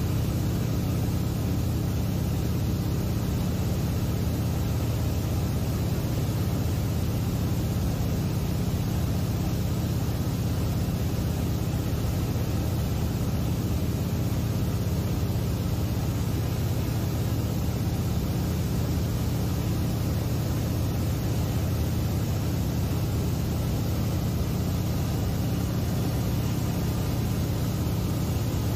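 A seaplane's engine and propeller running steadily in flight, heard from inside the cabin as an unbroken low drone.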